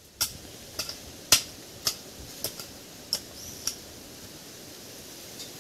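Hoe striking into stony soil, about eight short sharp knocks at a steady pace of roughly two a second, stopping a little past halfway.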